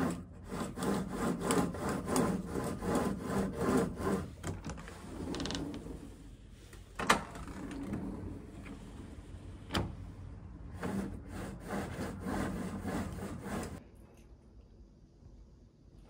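A venetian blind being raised by its cord in quick repeated pulls, the slats and cord rattling and rubbing with each stroke. A couple of sharp clicks come in the middle as a sliding window's handle is worked, then another run of rattling pulls before the sounds stop about two seconds before the end.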